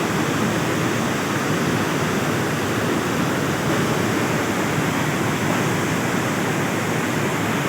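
Steady rushing of a river in flood, swollen by a night of heavy rain.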